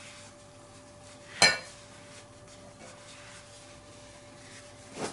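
A metal-tipped spoon scooping cooked rice out of a Staub cast-iron pot into a ceramic bowl: faint scraping, with one sharp ringing clink about a second and a half in and a second, smaller clink near the end.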